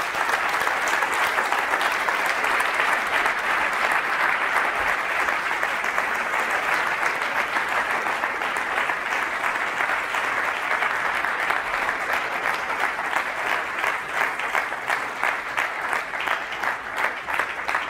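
Audience applauding: a dense, steady wash of many hands clapping, which thins out near the end into more distinct separate claps.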